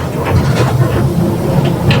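Mercedes-Benz OF 1721 BlueTec 5 bus under way: a steady low drone from the drivetrain, with the differential growling. A few short clicks and rattles sound over it.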